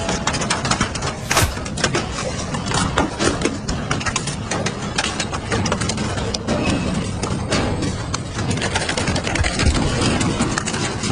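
Double-shaft industrial shredder running, its hooked cutter teeth crunching and tearing through sheet metal and a plastic kick scooter. Frequent sharp cracks and snaps sound over a low, steady machine drone.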